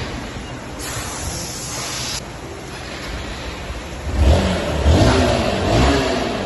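Honda CB1000R's inline-four engine idling, then revved in three quick blips over the last couple of seconds, each rising and falling in pitch. A brief hiss sounds about a second in.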